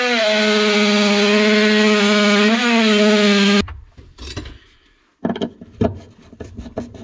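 Oscillating multi-tool cutting through wooden boxing: a steady high buzz that dips briefly in pitch as the blade loads, then cuts off suddenly about three and a half seconds in. After a short quiet gap come a run of light knocks and scrapes.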